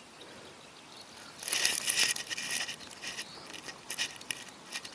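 Close handling noise from hands tying a Palomar knot with fishing line onto a soft plastic frog lure: a rustling, crinkly burst about a second and a half in, then a few sharp clicks.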